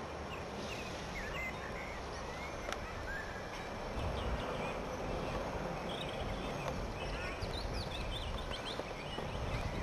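Outdoor ambience: small birds chirping in short, repeated calls over a steady low rumble of wind noise.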